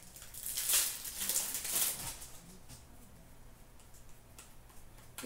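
Rustling and crinkling of a hockey card pack wrapper and cards being handled, loudest in the first two seconds, then fainter rustling as the cards are thumbed through.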